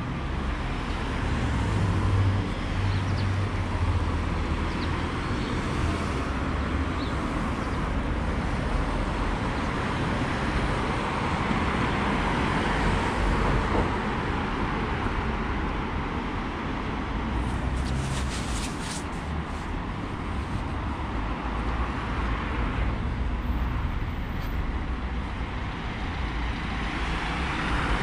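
Street traffic: a steady rumble of passing cars, with a brief rattle of high clicks past the middle.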